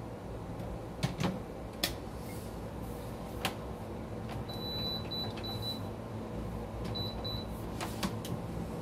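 Kitchen counter work: a few sharp knocks and clicks as things are handled and set down. Two runs of short, high electronic beeps come midway and again later, over a steady low hum.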